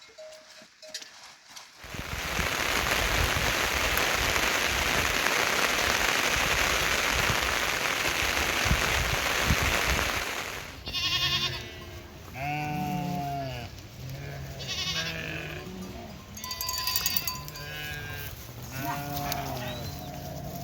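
A steady hiss of heavy rain that cuts off about ten seconds in, followed by sheep bleating again and again in wavering calls.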